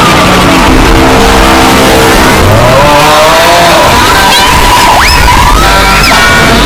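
A very loud mash of overlapping sound effects: several pitched tones at once, many sliding up and down, with a couple of quick rising whistles near the end.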